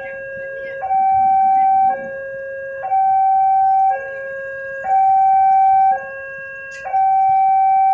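Railroad level-crossing warning alarm sounding its two-tone signal, a lower and a louder higher tone alternating about once a second. It is the warning that a train is approaching while the gates are down.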